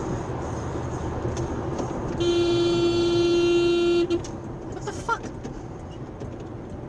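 A car horn blares one steady note for about two seconds, starting about two seconds in, over the road and tyre noise of a moving car heard from inside the cabin.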